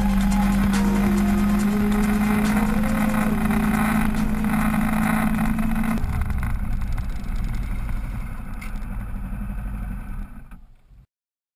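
Kawasaki Ninja 250 parallel-twin engine running with wind noise on the bike-mounted camera. It holds a steady note for about six seconds, then the note drops away and the sound grows quieter as the bike slows to a stop, fading out near the end.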